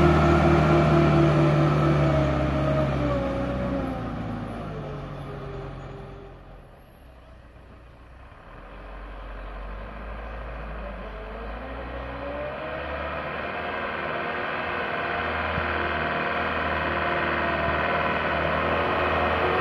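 Truck engines labouring up an incline under loads of sugarcane. One truck's engine fades as it pulls away, then from about halfway through a second truck's engine grows steadily louder as it approaches, its pitch rising and falling.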